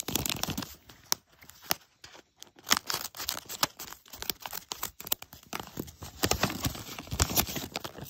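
Handmade paper blind bag being handled and cut open with scissors: irregular crinkling and rustling of paper with sharp snips.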